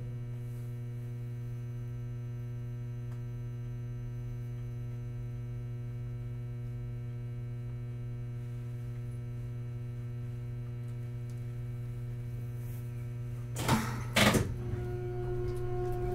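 Hakodate City Tram 3000 series car standing still, with a steady electrical hum of several even tones from its onboard equipment. About 14 seconds in come two short loud bursts of noise. The whine of its Toyo GTO VVVF inverter then sets in as the tram starts to move off.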